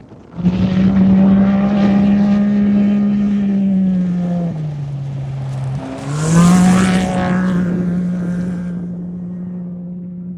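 Off-road race vehicle's engine running at steady high revs, dropping in pitch about four and a half seconds in, lifting briefly near six seconds, then revving back up. The loudest moment is just after it revs back up, with a rush of hiss, and it fades gradually toward the end.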